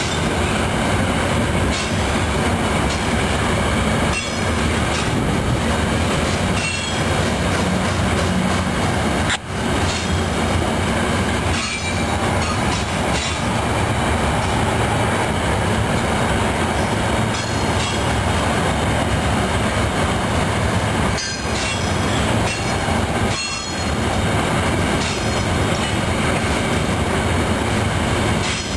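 Loaded freight cars of a long freight train rolling steadily past: a continuous rumble of steel wheels on the rails, with a few sharp clicks as wheels cross rail joints.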